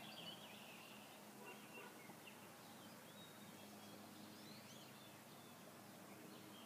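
Faint outdoor birdsong: scattered chirps and short whistles from small birds, a cluster at the start and again about four and a half seconds in, over a low steady hum.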